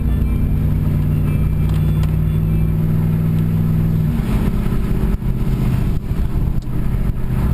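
Pickup truck engine running, heard from inside the cab; its note changes abruptly about four seconds in.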